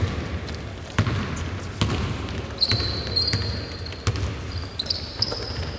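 Basketball being dribbled on a court, a few bounces about a second apart, with sneakers squeaking on the floor from about halfway through.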